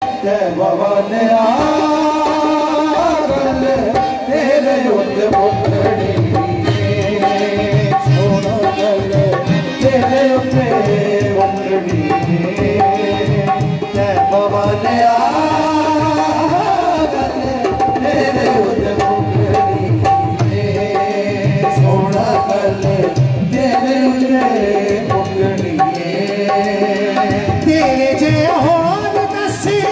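Qawwali: a man sings the lead over two harmoniums playing the melody, with a hand drum keeping a steady, driving rhythm.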